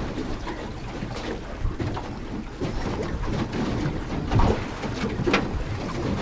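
Small boat under way at slow trolling speed: outboard motor running with water washing and slapping against the hull, and two sharper slaps about four and five seconds in.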